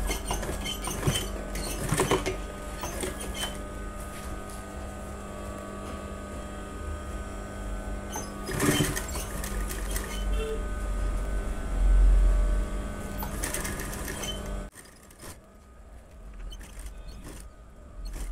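Sewing machine running as it stitches a zip onto a blouse, then stopping about fifteen seconds in, followed by quieter handling noises.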